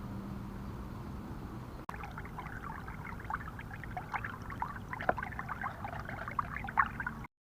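Water splashing and trickling in many small, irregular splashes, after about two seconds of steady low hum.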